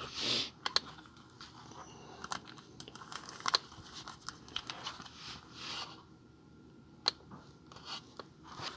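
Trading cards and plastic packaging being handled: soft rustling, crinkling and scattered light clicks.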